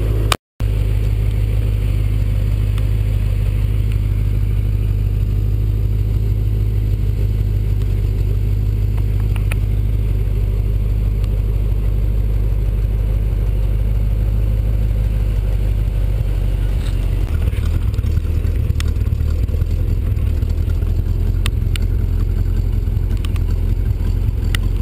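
The GM 350 crate V8 in an '82 Chevy S-10 pickup running steadily with a deep low rumble, picked up by a camera mounted on the truck. The sound cuts out briefly about half a second in. From about 17 seconds in the rumble turns choppier and more uneven.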